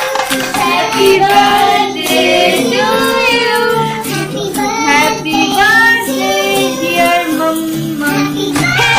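Music with a singing voice: a song carries a sung melody over instrumental backing.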